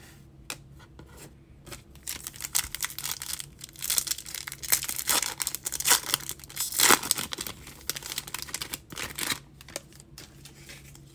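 Foil wrapper of a Bowman baseball card pack being torn open and crinkled. A few light clicks first, then several seconds of crackling tearing starting about two seconds in, loudest near the middle and stopping over a second before the end.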